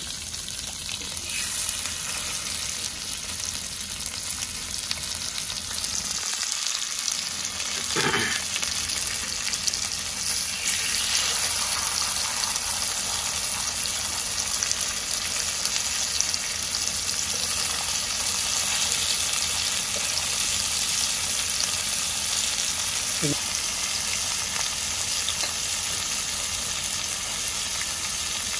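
Tiger prawns frying in hot oil in a pan: a steady sizzle that gets a little louder about ten seconds in, with a couple of brief knocks from stirring.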